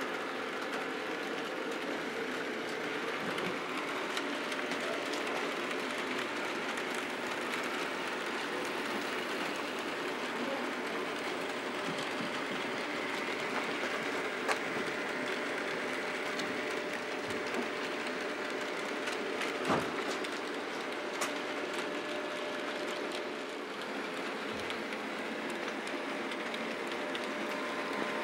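HO-scale model trains running on the layout track: a steady whirr of the small locomotive motors and wheels rolling on the rails, with a few sharp clicks along the way.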